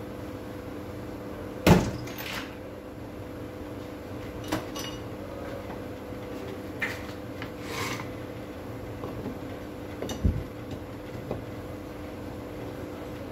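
Metal parts of a disassembled impact drill and a steel plate being handled and set down on a workbench. A sharp knock comes about two seconds in, then a few lighter clinks and scrapes, and a low thud near ten seconds, over a steady low hum.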